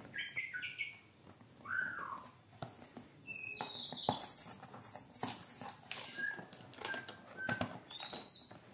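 Fingernails picking and scratching at the seal sticker on a cardboard box, with sharp clicks of handling, while short chirping bird calls come and go in the background.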